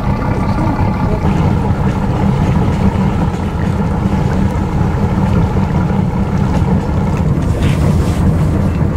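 Tour boat's engine running steadily while under way, a low continuous rumble, with wind noise on the microphone.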